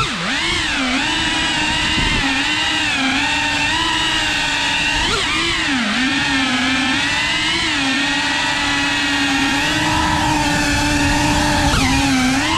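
FPV quadcopter's brushless motors and propellers heard from its onboard camera: a steady buzzing whine that dips and rises in pitch with throttle changes, dipping most sharply just after the start, about six seconds in and near the end.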